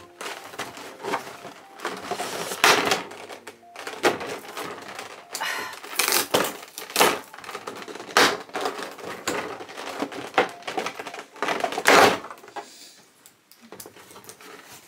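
Clear plastic blister packaging being handled and pulled apart: irregular crinkles, rustles and sharp clicks of the plastic, the loudest crackle about three seconds before the end.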